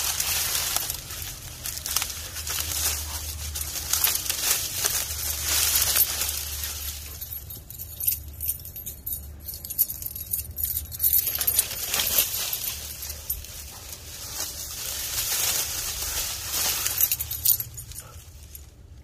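Dry rustling and crackling of a heap of cut fronds being trampled and pushed through, a dense run of sharp crackles that eases for a few seconds midway and stops shortly before the end.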